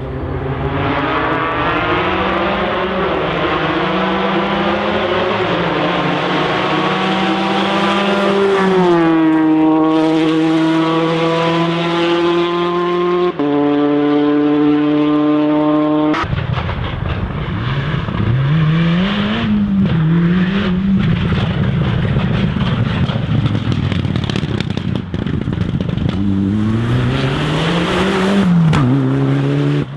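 Rally car engine at full racing revs, holding high with a gear change in the middle. About halfway the sound switches abruptly to another rally car whose engine revs rise and fall repeatedly as it works through the gears.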